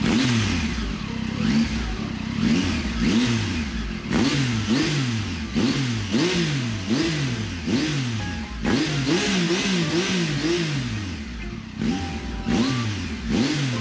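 2018 Triumph Tiger 800 XCX's three-cylinder engine, breathing through a Two Brothers Black Carbon slip-on exhaust, revved in quick repeated throttle blips. The pitch rises and falls about three times every two seconds.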